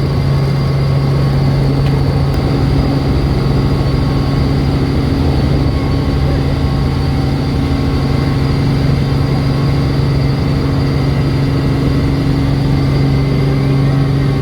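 Engine running at a steady speed, a loud even drone with a low hum and no change in pitch.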